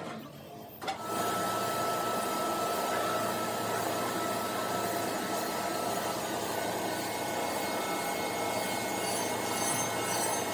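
A workshop machine or power tool starts suddenly about a second in and runs steadily: an even, noisy hiss with a faint high whine over it.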